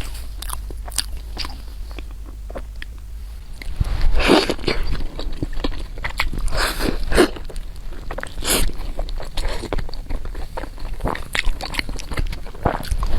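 Close-miked eating: wet, irregular smacking and crunching of a mouthful of food, soft at first and growing louder about four seconds in.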